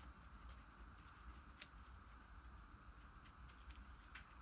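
Near silence: faint room tone with a steady low hum and a few faint small ticks.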